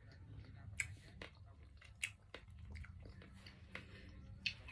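Close-up chewing of fresh strawberries, with soft wet squelches and a few sharp mouth clicks.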